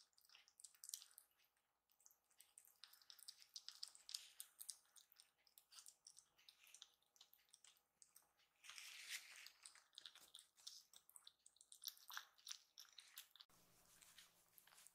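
Two kittens eating from their bowls: faint wet smacking, licking and chewing clicks, denser for a moment about nine seconds in.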